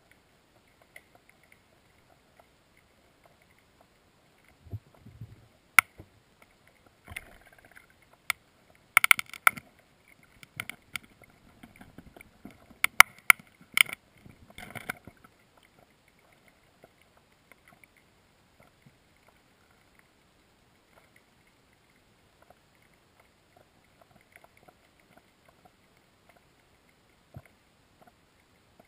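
Scattered sharp clicks and knocks heard underwater, muffled through a camera housing, bunched between about five and fifteen seconds in, with a low thump just before them and long quiet stretches either side.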